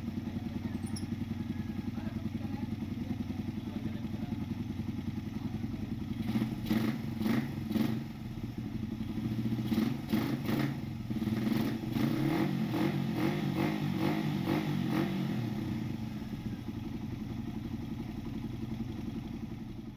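Motorcycle engine running at idle, with several short throttle blips through the middle before it settles back to a steady idle.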